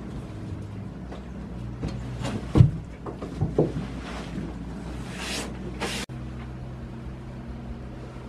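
Goats moving about in a straw-bedded wooden shed: scattered knocks, the loudest about two and a half seconds in, and two brief rustles a little after five seconds in, over a steady low hum.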